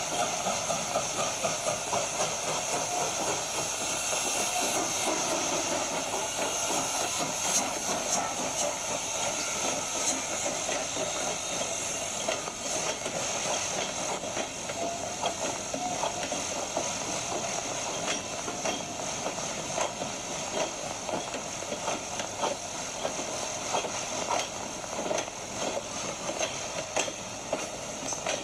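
Sound decoder of a model Union Pacific 838 steam locomotive chuffing over a steady steam hiss, with sharp clicks from the model cars rolling over the track. The chuffing is an unexpected wheel-slip sound.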